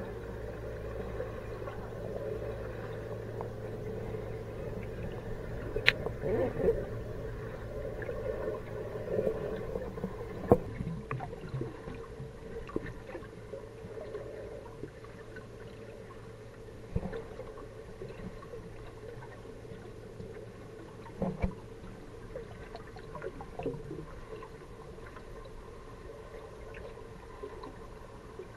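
Muffled underwater sound heard through a camera submerged in a large aquarium tank: a steady low hum and water noise, broken by a few sharp clicks and knocks.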